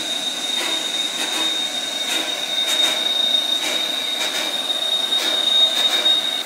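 Pt47 steam locomotive rolling slowly past with its train, its wheels giving a steady high-pitched squeal over irregular knocks and clanks.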